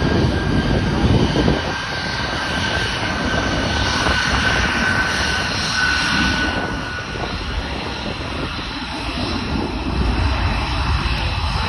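Boeing C-17 Globemaster III's four Pratt & Whitney F117 turbofans running steadily during a slow, low flyby, with a high whine over the jet noise.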